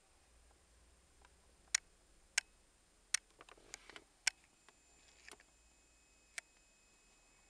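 Sharp plastic clicks, about five spread out over several seconds, with light rustling in between around the middle, from hands handling a cable, its connector and a hand-held tacho programming device.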